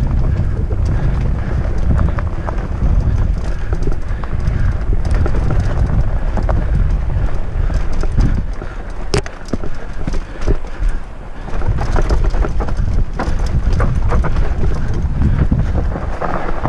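Fatbike riding fast down a dirt forest trail: wind buffeting the action camera's microphone over the rumble of the fat tyres, with scattered knocks and rattles from the bike over bumps. The rumble eases briefly a few times about halfway through.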